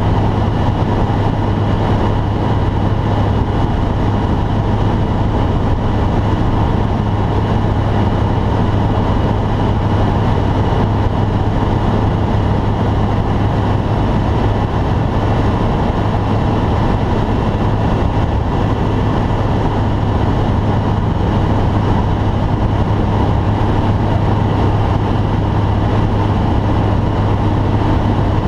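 Light aircraft's engine and propeller running at a steady drone, heard loud from inside the cockpit.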